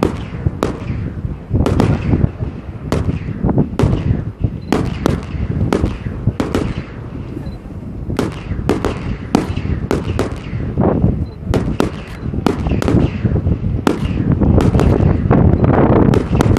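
Aerial fireworks display: shells bursting in a rapid, irregular string of sharp bangs, about two a second, over a low rumble. The bangs come thicker and louder over the last few seconds.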